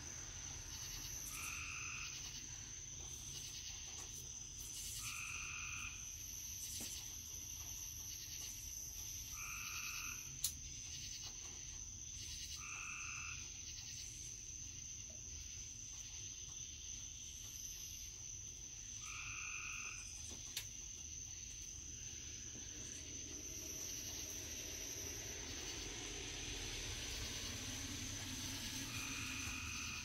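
A frog calling about six times, short calls a few seconds apart, over a steady high insect drone. A single sharp click sounds about ten seconds in, and a car is heard approaching near the end.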